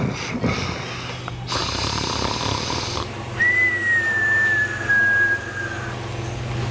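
A sleeping cat snoring: a noisy breath about one and a half seconds in, then a thin whistle, slightly falling in pitch, that lasts about two and a half seconds.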